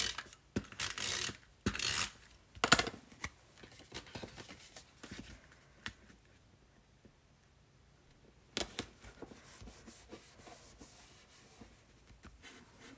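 Adhesive tape runner drawn across cardstock in three quick strokes in the first three seconds, then soft rustles and light taps of card stock being handled and pressed down.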